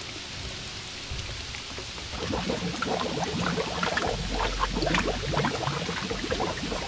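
Steady rain hiss, joined about two seconds in by the louder splashing of muddy water and wet sand pouring down a sandy slope in a mudslide, with a low rumble underneath from about halfway through.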